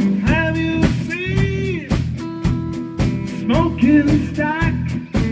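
Background music: a song with a sung melody over guitar and a steady drum beat.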